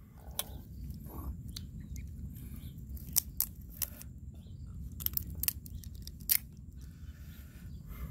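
Grilled crab's shell being broken and picked apart by fingers: an irregular scatter of sharp cracks and clicks, over a steady low rumble.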